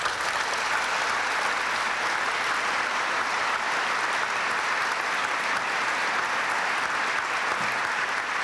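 A large audience applauding: dense, steady clapping that starts suddenly and holds at full strength throughout.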